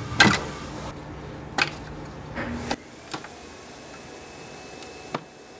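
Several sharp plastic clicks and knocks, the loudest about a quarter second in, as wiring-harness clips are worked loose by hand and with a small flathead screwdriver.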